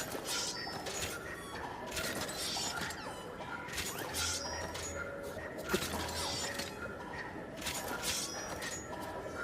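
Ōdachi (long Japanese sword) sound effects: sharp metallic swishes, each with a thin ringing tail, repeating every two to three seconds.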